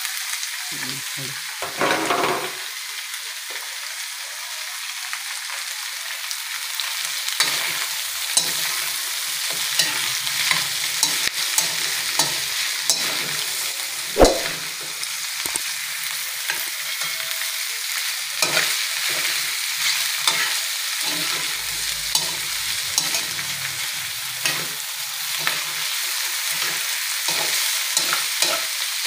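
Chopped roast pork (lechon) frying in hot oil with browned garlic in a metal wok, sizzling steadily while a metal spatula stirs it. Frequent sharp clinks and scrapes of the spatula on the wok, with one louder knock about 14 seconds in.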